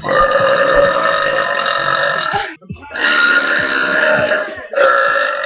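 A young woman's loud, drawn-out belches, one after another: one lasting about two and a half seconds, a second of nearly two seconds, and a third starting near the end.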